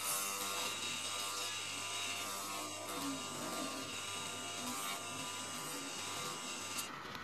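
Electric motor of a grinding wheel buzzing steadily while a slipper sole is pressed against the spinning wheel and ground smooth, with a hiss of abrasion over the motor hum. Background music plays along.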